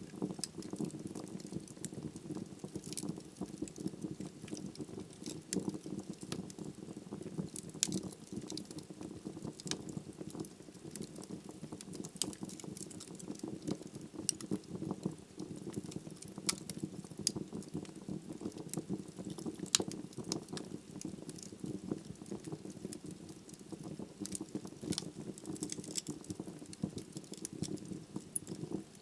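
Wood logs burning in a fireplace: a steady low rush of flame under frequent irregular crackles and pops, with one louder pop about twenty seconds in.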